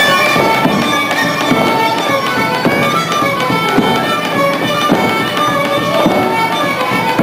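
Hungarian folk string band playing a dance tune: fiddle melody over steady rhythmic chords and bass.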